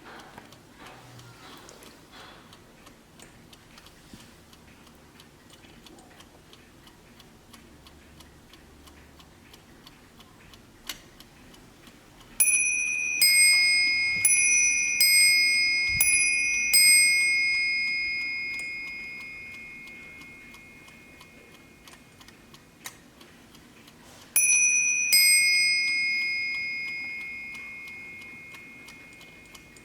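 Vintage Warmink Dutch mantel clock ticking steadily, then striking on its two bells: a run of alternating ding-dong strikes begins about twelve seconds in and rings on, slowly fading. A single ding-dong pair sounds near the end and fades.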